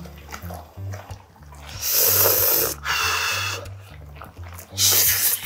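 A man eating a big mouthful of grilled sandfish and rice, chewing with soft wet clicks, then huffing out several loud breaths through his mouth while chewing, about two, three and five seconds in. Background music with a steady low bass line plays underneath.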